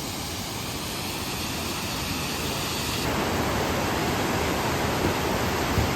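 A waterfall rushing: a steady roar of falling water that swells slowly louder and gets a little brighter about halfway through.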